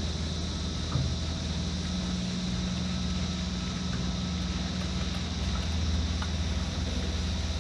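Motorboat engine running steadily with a low hum, under a light outdoor hiss, with a single knock about a second in.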